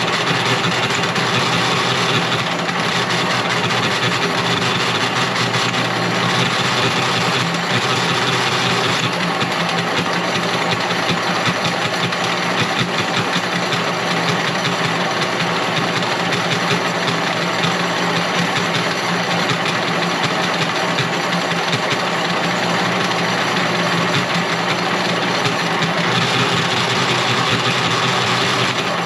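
A motor or engine running steadily, with no break.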